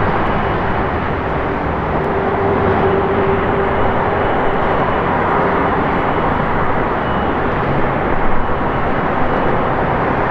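Airbus A330-200's Rolls-Royce Trent 700 turbofans running at low taxi power: a steady rushing jet roar, with a low hum that fades about three seconds in.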